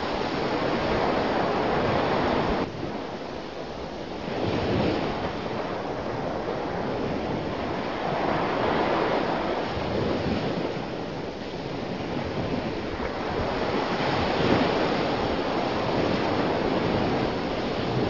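Ocean waves breaking and washing on a shore, surging and ebbing every few seconds, with a sudden dip in level about three seconds in before the surf builds again.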